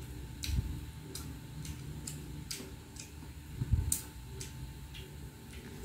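A person chewing food, with sharp mouth clicks about twice a second, broken by short pauses. Two dull low thumps come about half a second and about four seconds in.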